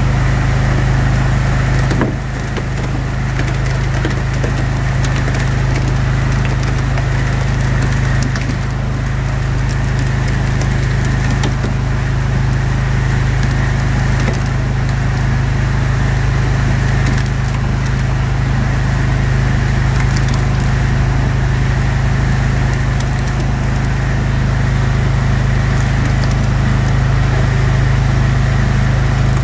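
Roto Sieve rotary drum screen running: a steady low drive hum with a constant crackle and scattered small ticks as wet abattoir screenings tumble along the turning drum's spiral flights.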